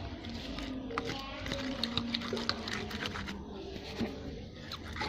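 Slime, still a little sticky, being stirred in its container after activator was added: frequent small wet clicks and smacks as it pulls off the sides.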